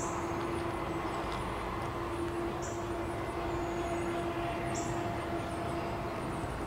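Steady rumble of a freight train's diesel locomotives, not yet in sight, with a constant low hum running through it. Short high bird chirps come and go over it.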